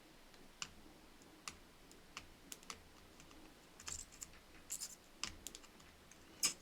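Faint, scattered small clicks and taps of tools on a circuit board: the soldering iron tip and a gripping tool working at the pins of a mouse scroll-wheel rotary encoder while desoldering it, irregular, with a few quick clusters and one louder tap near the end.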